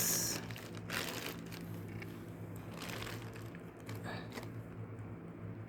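Packaging crinkling and rustling in a few short bursts as sandals are handled, the loudest at the start. A steady low hum runs underneath.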